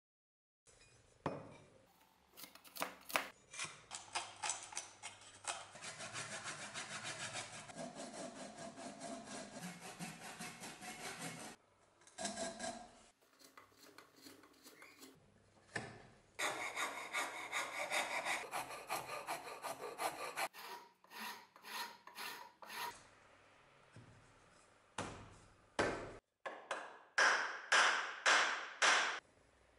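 Rasp or file scraping a birch axe handle in quick back-and-forth strokes, in two long spells with scattered knocks between. Near the end comes a run of loud hammer blows, about two a second, seating the axe head on the handle.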